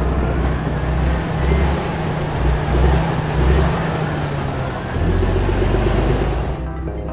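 Heavy vehicle engine running, a low rumble that swells and eases a few times.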